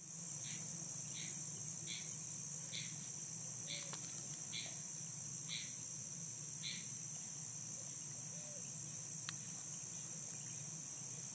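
Steady high-pitched insect chorus, with a short chirp repeated about once a second through the first seven seconds.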